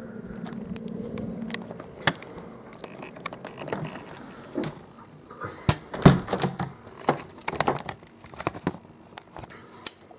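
A distant Airbus Helicopters EC175's steady hum fades out in the first second or two. Irregular knocks and clicks of the camera being handled follow, the loudest about six seconds in.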